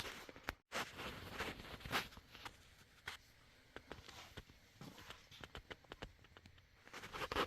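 Scattered light clicks, taps and rustles of hands handling and pressing on ABS plastic taillight covers, with a few sharper taps among them.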